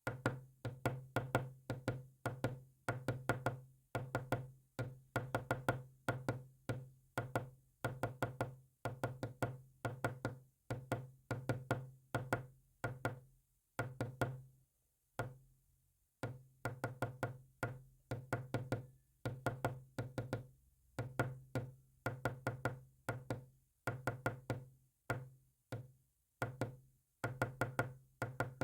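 Rapid clicking in short bursts, meant as Morse code: a cluster of sharp clicks about every half second, each with a low hum under it, and a pause of about two seconds a little past halfway.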